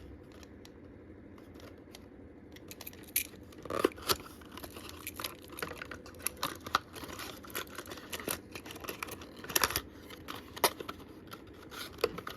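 Hands unpacking toy cars: irregular small clicks, taps and crinkles from cardboard boxes and packaging being opened and handled, with a few sharper clicks about four seconds in and again near ten seconds.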